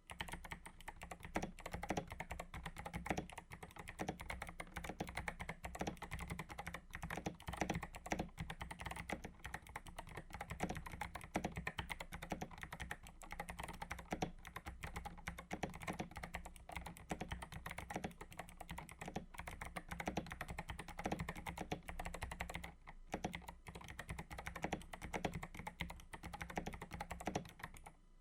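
Continuous fast typing on a mechanical keyboard, a dense run of key clicks with one brief pause late on.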